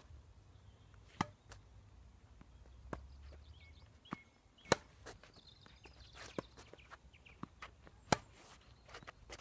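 Tennis ball being struck back and forth in a rally: sharp pops of racket hits and ball bounces, the two loudest about four and a half and eight seconds in, with fainter ones about one and three seconds in.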